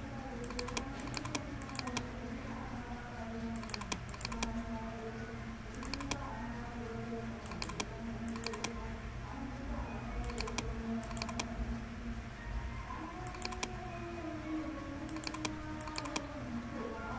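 Computer mouse clicks in quick groups of two to four, every few seconds, as answers are picked and the next question is brought up. Under them are a steady low hum and faint wavering tones.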